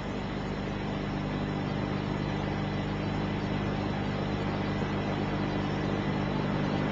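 Steady hiss with a low hum, growing slowly louder: the background noise of an old Quran recitation recording.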